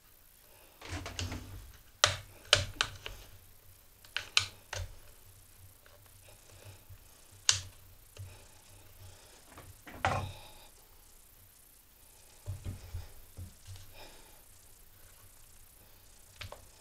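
Metal screwdrivers clicking and tapping against the plastic throttle handle housing of a Homelite string trimmer as it is pried apart, in irregular sharp clicks in small clusters.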